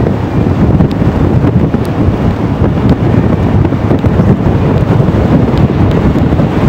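Heavy wind buffeting on the microphone, a loud continuous low rumble that surges unevenly, over the sound of a passing train.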